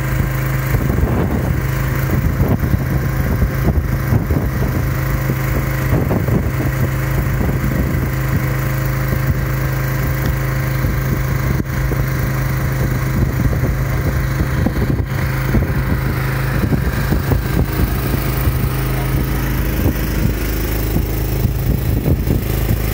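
Portable gas generator running steadily under load, a constant low engine hum.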